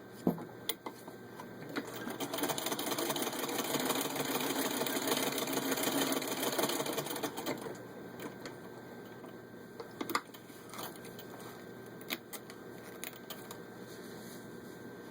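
Hand-cranked 1941 Singer 15-86 sewing machine stitching through six layers of denim: a rapid, even run of needle-and-shuttle clatter that builds up, goes for about six seconds and slows to a stop. Afterwards a few separate clicks and knocks.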